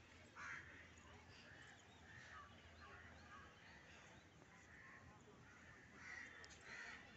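Faint crows cawing: a few separate calls with quiet between, the loudest about half a second in and again near the end.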